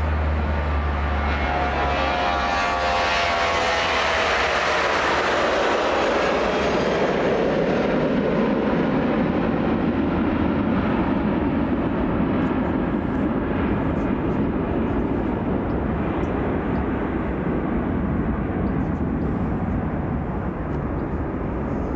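Boeing 737-800's CFM56-7B turbofan engines at takeoff power. A whine falls in pitch over the first few seconds as the jet rolls past and lifts off, then a broad rumble goes on as it climbs away, its hiss fading from about eight seconds in.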